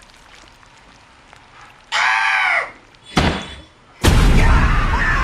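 Horror-film sound effects playing from a laptop: a short wavering tone about two seconds in, then a sharp slam, then a loud sustained boom from about four seconds in.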